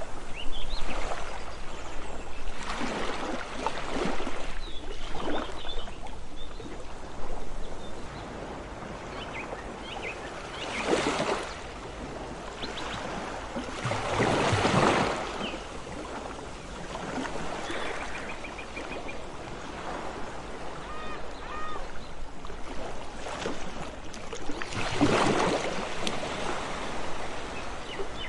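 Sea waves washing onto a beach, the surf swelling and falling away every few seconds, with a few stronger washes standing out.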